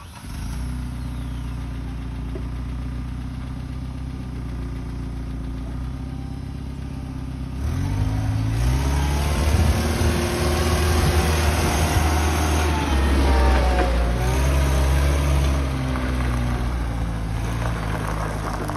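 Combilift C4000 multidirectional forklift's engine running steadily at low revs. About eight seconds in it revs up and gets louder, its pitch rising and wavering for several seconds, then eases back down near the end.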